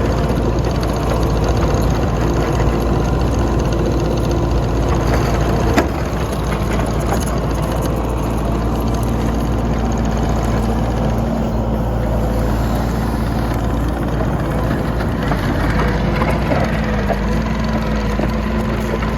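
Tracked skid steer's diesel engine running steadily under work, its pitch shifting up and down. A sharp click about six seconds in, after which the sound is slightly quieter.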